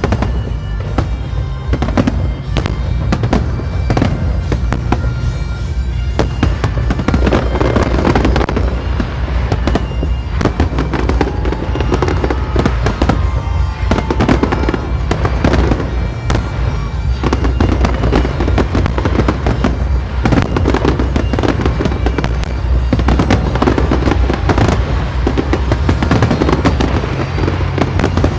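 New Year fireworks display: a continuous barrage of shells bursting in rapid bangs and crackles over a deep rumble.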